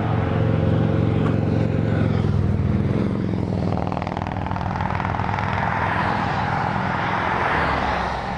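A motor vehicle's engine running close by, steady at first, then climbing in pitch over the next few seconds and easing off near the end.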